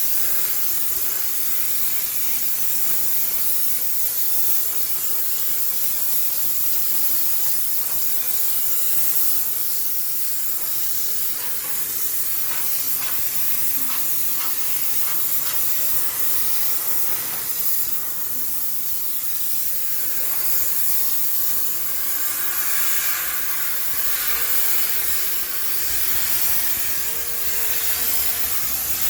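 High-pressure steam cleaner jetting steam with a steady hiss, used to sterilize a washing machine.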